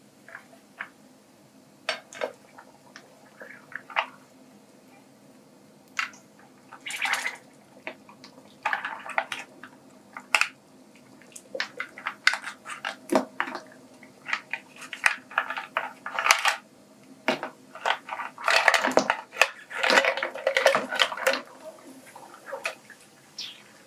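Snail shells clacking against a ceramic bowl and a metal pan and dropping with splashes into boiling water: a scatter of sharp knocks and short splashes that grows busier in the second half.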